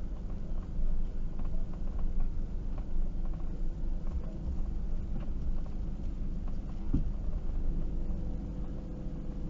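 Hymer ML-T 580 motorhome's diesel engine running steadily while the van creeps along at walking pace, heard from inside the cab.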